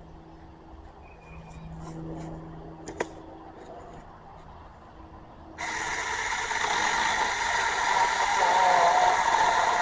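A sharp click about three seconds in, then a cordless 4-inch mini chainsaw starts abruptly just past halfway and runs at full speed, its chain cutting into a white pine trunk, the motor's pitch wavering under load as the sound grows louder.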